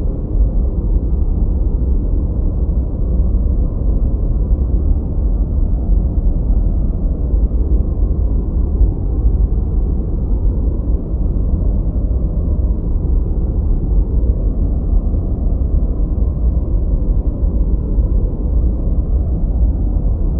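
A steady relaxation noise track: an even, deep, rumbling hiss, heavy in the bass, with no high end and no changes.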